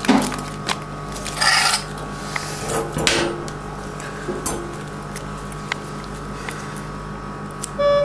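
Steady electrical hum of veterinary operating-room equipment, with two short rustling noises in the first few seconds and a brief electronic beep near the end.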